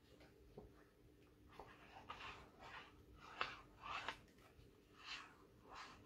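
Faint handling of cardstock: soft paper rustles and scrapes with a few light ticks as a card panel is held and glued.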